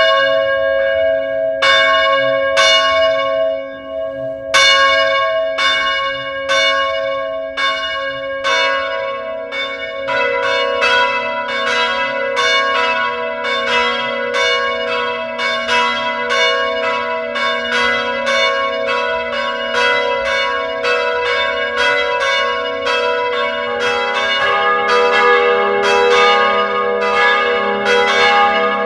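Church bells ringing, each strike leaving a long ringing tail. The strikes come about once a second at first, then from about nine seconds in they come faster and overlap as more bells sound together.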